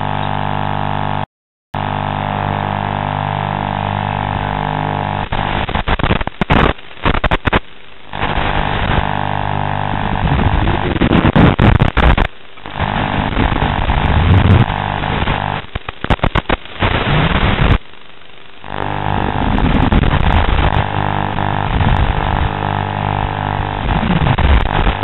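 Steady electrical buzz and hum made of many fixed tones, cutting out abruptly several times and sweeping up and down briefly now and then: analog FPV video-link noise recorded by the goggle DVR.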